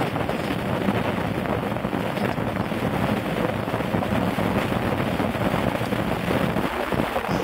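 Wind rushing over and buffeting the microphone: a steady noise with a fluctuating low rumble.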